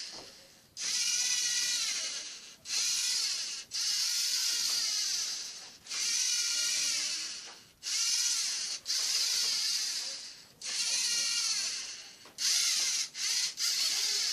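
A small LEGO robot's geared electric drive motors whining through a programmed series of moves: about nine short runs, each rising and falling in pitch, split by brief pauses as the robot stops between drives and turns.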